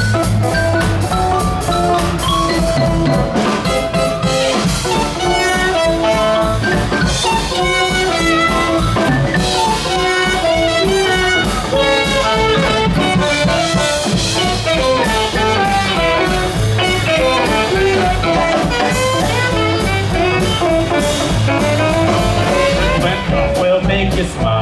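Live brass band playing an upbeat jazzy tune, with trumpet, saxophone, slide trombone, upright bass and drum kit, and a xylophone playing quick runs of short notes.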